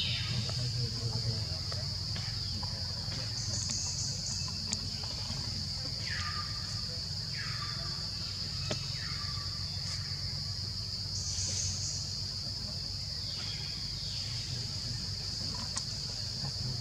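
Steady high-pitched drone of forest insects, with several short downward-sliding calls every few seconds and a low rumble underneath.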